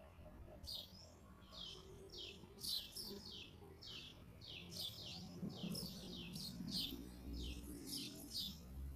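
Sparrows chirping: a quick, steady run of short, high chirps, each dropping in pitch, about two to three a second.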